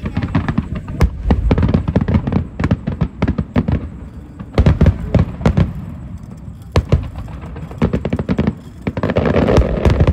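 Fireworks display: a rapid barrage of aerial shell bursts, with bangs and crackling coming thick and fast. There is a heavy cluster of bangs about halfway through, a single sharp bang a little later, and dense crackling near the end.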